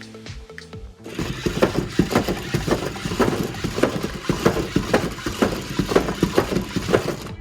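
Rapid clicking and clattering of small hard plastic parts, starting about a second in, with sharper clicks two or three times a second.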